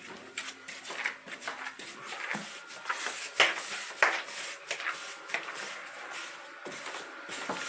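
Close handling noise: rustling and rubbing of things being carried and moved, broken by short clicks and knocks, with two sharper knocks about three and a half and four seconds in.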